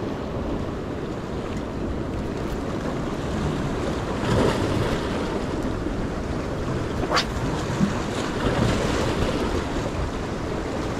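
Sea surf washing against jetty rocks, with wind buffeting the microphone. The water swells up about four seconds in, and there is a single sharp click about seven seconds in.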